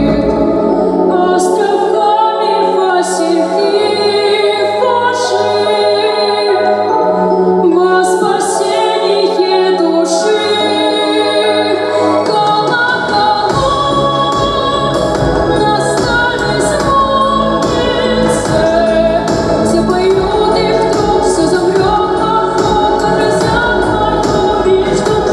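A female singer's voice performing a song over a musical accompaniment with choir-like backing voices. The deep bass of the accompaniment comes in about halfway through.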